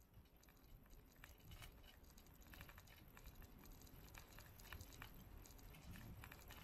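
Near silence: faint, irregular ticking and rattling over a low rumble, from a bicycle rolling along a paved road.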